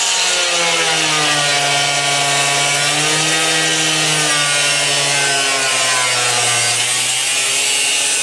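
Power tool cutting through a rusted sheet-steel cab floor, running steadily under load with a strong high hiss over a tone whose pitch wavers slightly as the cut goes on.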